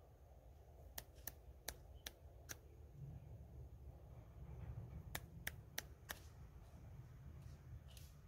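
A series of sharp, quick clicks, five in about a second and a half, then four more a few seconds later, over a faint low rumble.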